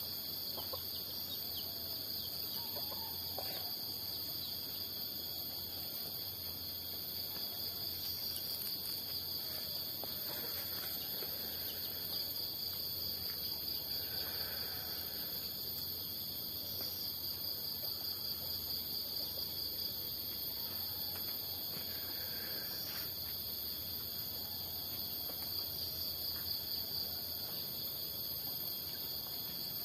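Steady high-pitched chorus of insects, a continuous trilling that runs without a break.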